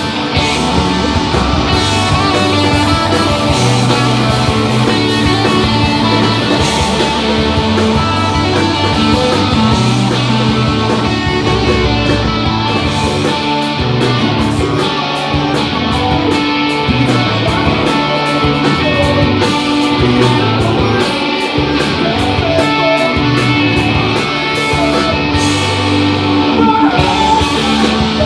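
Live pop punk band playing: electric guitars over bass, with a steady beat of cymbal hits.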